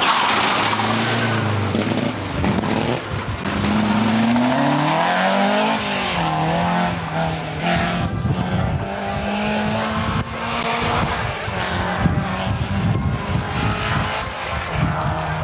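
Rally car engine at full throttle on a tarmac stage, its pitch climbing as it revs up, dropping at a gear change about five and a half seconds in, then holding steadier, with rough tyre and road noise underneath.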